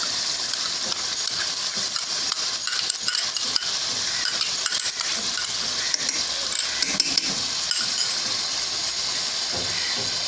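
Chicken curry sizzling steadily in a pot on low heat, with scattered clinks and scrapes of a metal spoon against a glass bowl as a thick nut-and-cream paste is spooned in.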